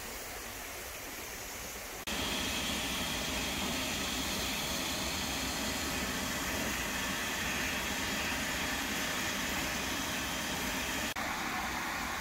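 Steady hiss of escaping steam from an LMS Black 5 steam locomotive, much louder from about two seconds in.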